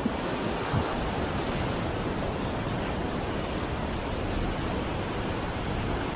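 Sea surf breaking and washing over rocks below a cliff, a steady rushing noise.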